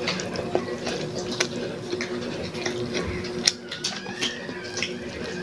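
Eating sounds of people eating rice and dried fish by hand: irregular wet mouth clicks and smacks while chewing, with a few fingertip taps on the plates, over a steady low hum.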